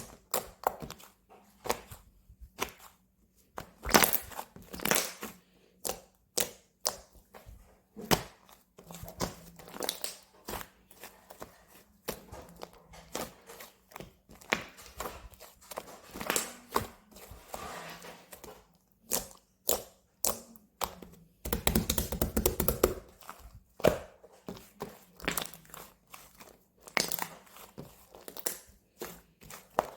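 Slime being squished and stretched by hand, giving irregular sticky pops and clicks. A fast run of crackling pops comes about two-thirds of the way through.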